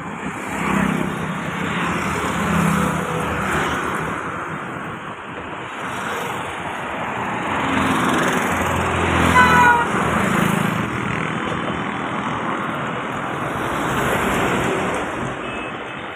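Road traffic on a flyover: engine hum and tyre noise of passing cars, motorbikes and auto-rickshaws, swelling and fading as vehicles go by. A short vehicle horn toots about halfway through.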